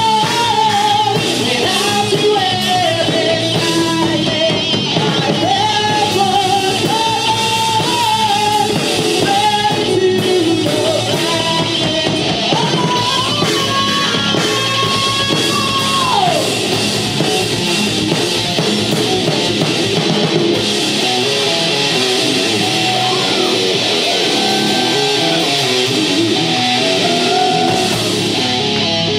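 Live heavy rock band playing loudly: a singer over distorted electric guitar, bass guitar and a drum kit. The singer holds one long note around the middle, then the voice drops back under the band.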